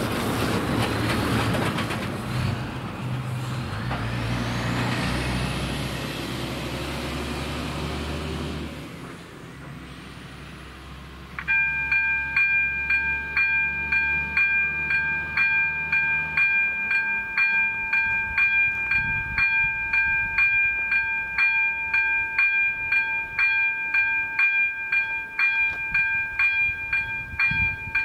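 A loaded eight-wheel dump truck crosses the level crossing, its diesel engine fading away over the first several seconds. About eleven seconds in, the level crossing's electronic warning bell starts ringing in an even, rapid rhythm of about two strokes a second, signalling that the crossing is closing for an approaching train.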